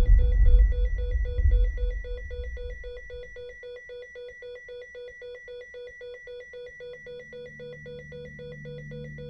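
An electronic, telephone-like ringing tone that pulses rapidly and evenly at a steady pitch. A deep rumble fades away under it during the first few seconds, and a low hum comes in near the end.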